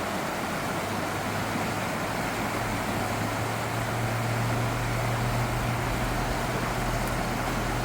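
A low steady engine hum, like a motor vehicle running, starts about a second in and holds over a constant rushing background noise.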